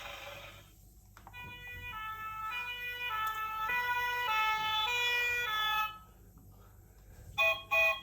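Electronic sound chip of a children's push-button sound book. A noisy sound effect dies away at the start, then a short electronic tune of stepping tones plays for about four and a half seconds. Near the end come two short beeps, like a toy car horn going 'beep beep'.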